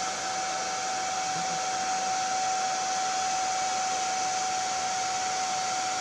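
Hand-held hair dryer blowing steadily, a rush of air with a steady motor whine over it.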